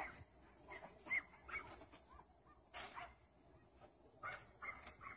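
Podenco hunting dog giving faint, repeated short whines and yips at irregular intervals, with one sharp click about three seconds in.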